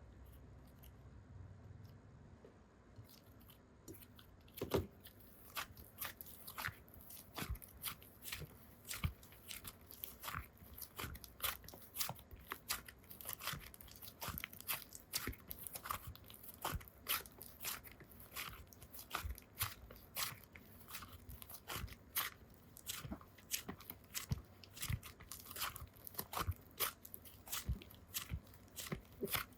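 Close-up crackling and crunching from something being worked by hand: quiet at first, then from about four seconds in a dense run of irregular small crackles and snaps, several a second.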